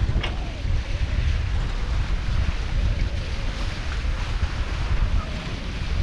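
Wind buffeting the microphone in a steady low rumble, over the rush and splash of water along a sailing catamaran's hulls under way.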